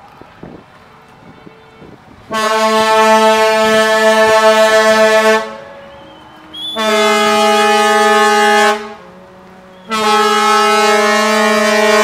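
Ship's horn sounding three long blasts, each held at one steady pitch for two to three seconds with short gaps between; the third is still sounding at the end.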